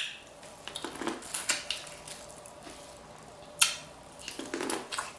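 Close-miked eating sounds at a seafood meal: scattered light clicks and taps, with one sharper click about three and a half seconds in and soft mouth sounds near the end.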